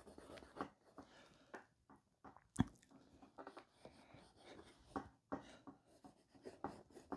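A black drawing stick scratching across paper in short, irregular strokes as a sketch is scribbled in, with one sharper tap about two and a half seconds in.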